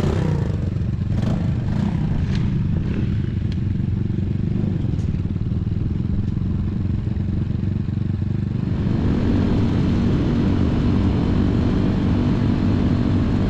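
Single-cylinder engines of Honda Trail 70 mini bikes running as the bikes pull away, with a few sharp clicks in the first three seconds. About nine seconds in, this gives way to a steady engine drone with road and wind noise as a bike cruises.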